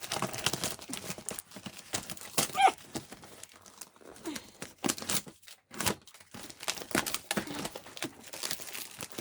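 Packaging being handled and pulled open: irregular crinkling, rustling and tearing of the box and wrapping, with a short squeak about two and a half seconds in.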